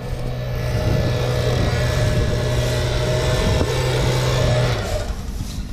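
Petrol leaf blower running steadily at full throttle, a motor hum under a strong rushing of air, blowing dust and grass seed off a combine harvester. Its engine note drops away near the end.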